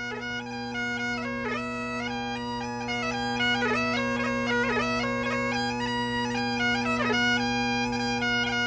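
Highland bagpipes playing a tune: a steady drone under a chanter melody that steps from note to note, broken by quick grace notes.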